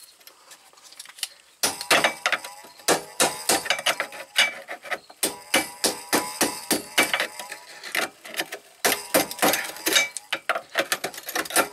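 Hand tools working on metal: a fast, irregular run of clicks and taps, some ringing, starting about a second and a half in, as a stuck vent line is worked at.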